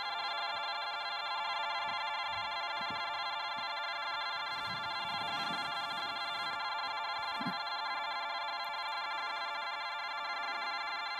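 Steady electronic buzzing drone made of many evenly spaced tones, the output of the 4ormulator V1180 audio effect. It holds the same level throughout, with faint low thumps underneath.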